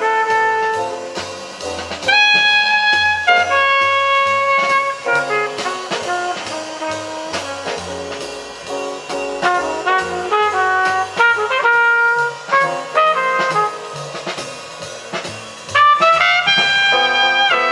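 Jazz with a brass lead over a walking low bass line and drums, played back through Dynaco A-10 bookshelf speakers driven by a Technics SE-A100 stereo power amplifier.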